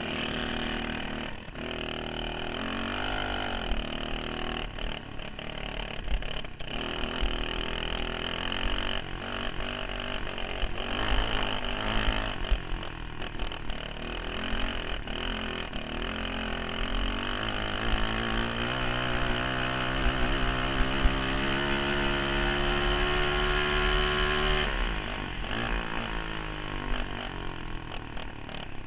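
Racing dirt kart's engine, heard from a camera mounted on the kart, running hard and rising and falling in pitch with the throttle through the corners. Late on it climbs steadily in pitch for several seconds, then drops suddenly as the throttle is lifted.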